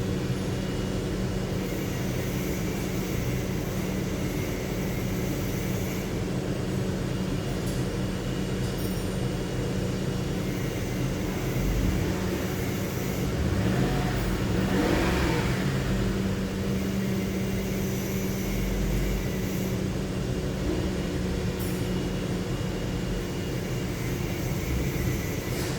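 A 2007 Lincoln Town Car's 4.6-litre V8 idling steadily, revved up once about halfway through and let fall back to idle. It runs evenly, with the misfire cured by a new number 7 ignition coil.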